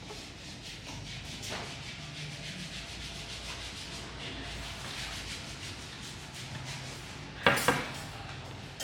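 Hands rubbing over skin during a back massage, then two sharp cracks in quick succession near the end.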